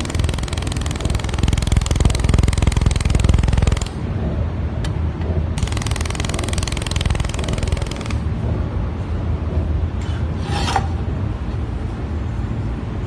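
Handheld laser welder welding a seam in 2 mm stainless steel: a dense crackling hiss for about four seconds, then, after a short pause, a second pass of about two and a half seconds. A steady low rumble runs underneath.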